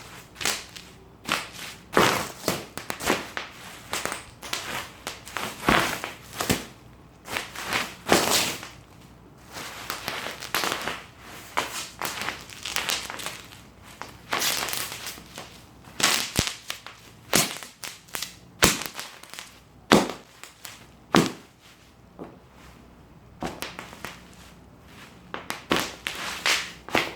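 Bubble wrap being crushed and torn, with irregular sharp pops of bursting bubbles amid crinkling plastic, in uneven flurries with brief pauses.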